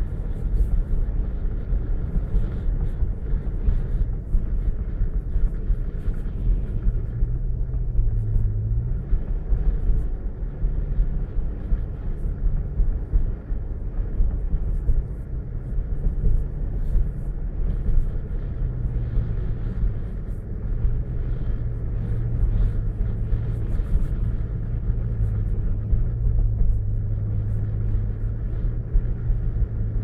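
Road and engine noise heard inside a car driving on a snow-covered road: a steady low rumble. A steady hum comes in about seven seconds in and again through most of the second half.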